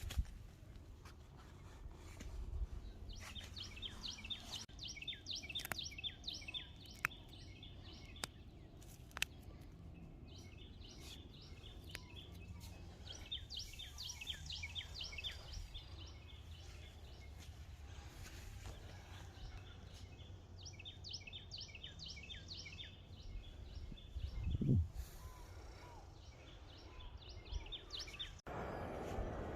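A songbird singing repeated phrases of rapid, high chirps several times, over a low steady rumble, with a single soft thump about three-quarters of the way through.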